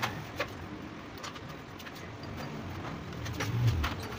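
Scattered light metallic clicks and taps as Honda CG125 gearbox parts are handled and seated in the aluminium crankcase, over a low background of street traffic. A low engine hum swells briefly about three and a half seconds in.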